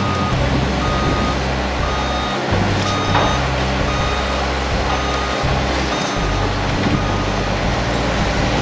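A construction vehicle's reversing alarm beeping repeatedly, about one short beep a second, over a steady low engine rumble.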